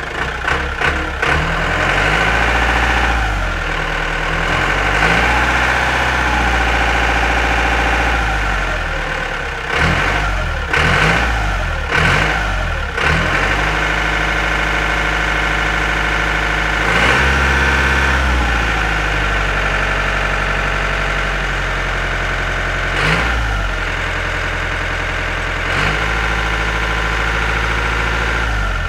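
Tractor engine sound effect, running with its pitch stepping up and down several times, with a few quick revs near the middle.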